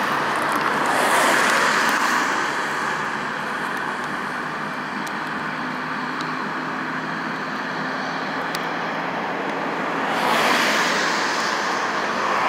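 Transit bus in motion: the Cummins ISC inline-six diesel running under steady road and tyre noise, swelling louder about a second in and again near the end.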